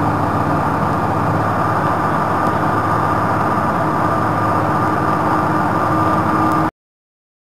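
Heavy engine of a drilling rig running steadily, with a steady high whine over it; the sound cuts off abruptly near the end.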